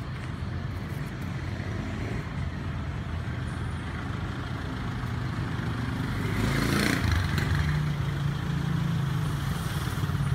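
Street traffic: motor vehicle engines running with a steady low hum, and one vehicle passing close about six to seven seconds in.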